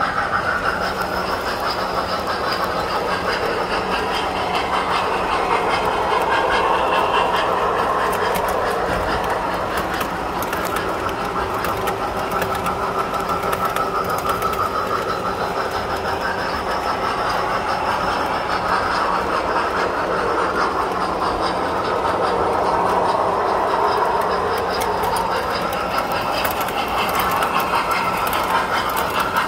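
Tinplate model trains running on the layout's track: a continuous rolling rumble and clatter of metal wheels on the rails, swelling and fading as the trains pass by.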